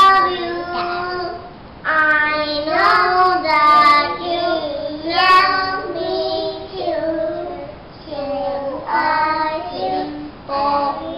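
A group of young children singing a song together, in short phrases with brief breaks between them.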